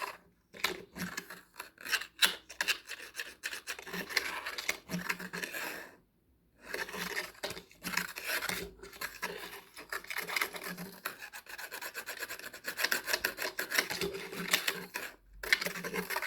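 A cat's claws scratching a rough surface: quick rasping strokes, several a second, with a short pause about six seconds in.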